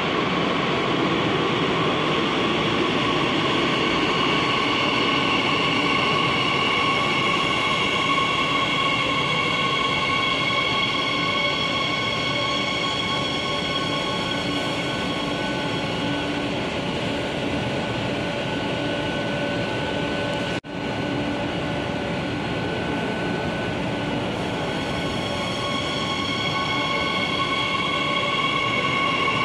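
CAF S8000 Madrid Metro train pulling into an underground station and standing at the platform: a steady mechanical rumble with several steady whining tones, and a faint wheel squeal. The sound cuts out for an instant about two-thirds of the way through.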